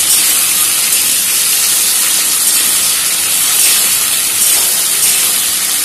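Potato wedges, tomato and green chillies sizzling steadily as they fry in a kadai.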